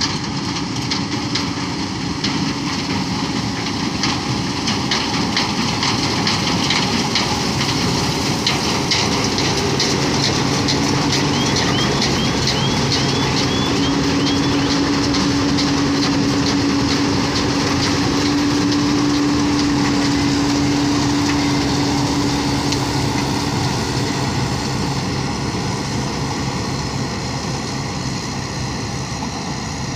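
John Deere W70 combine harvester running as it cuts and threshes rice: a steady engine and machinery drone with some clatter, its low hum growing stronger as the machine passes close by in the middle.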